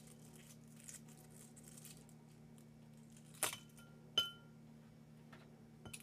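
Shell being picked off a boiled egg by hand, with faint crackles and two small pieces of shell clinking into a glass bowl about three and a half and four seconds in. A faint steady hum runs underneath.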